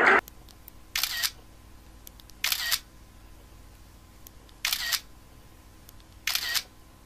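Camera shutter clicks, four of them about one and a half to two seconds apart, each short and sharp, over a faint steady low hum.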